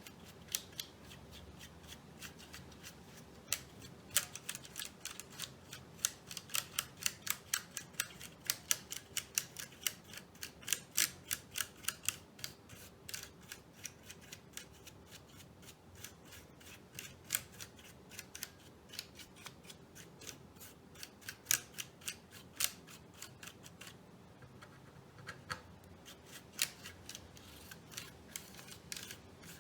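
Sharp plastic clicks from a Keychron K1 low-profile mechanical keyboard being worked on. They come irregularly, about two to three a second, with a short pause about three-quarters of the way through.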